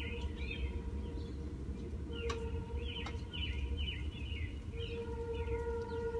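Distant freight train rumbling low and steady, with a steady pitched tone that fades out early on and returns about two seconds and five seconds in. Small birds chirp repeatedly over it, and there are a couple of sharp clicks a little after two and three seconds in.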